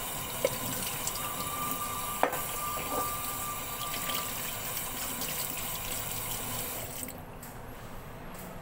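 Kitchen tap running into a sink, with a couple of sharp knocks of things being handled in it; the water is shut off about seven seconds in.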